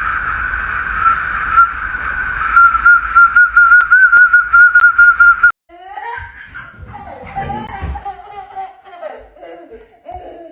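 A high, steady whistle that wavers toward its end and cuts off abruptly about five and a half seconds in, followed by high-pitched laughter.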